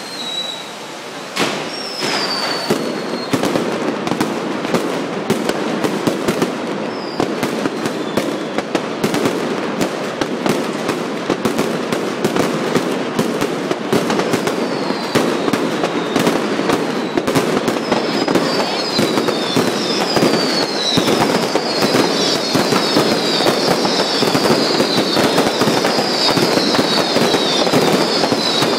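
Fireworks and firecrackers going off in a dense, continuous crackle of bangs that grows thicker as it goes, with one sharp bang about a second in. From about halfway on, many short falling whistles overlap the crackle.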